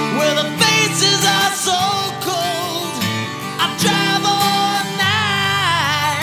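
Background music: a country-style song led by guitar, with gliding melody lines over sustained bass notes.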